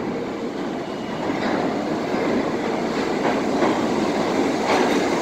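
New York City Subway 6 train approaching through the tunnel: a steady rumble of wheels on rail growing a little louder, with a few wheel clicks near the end.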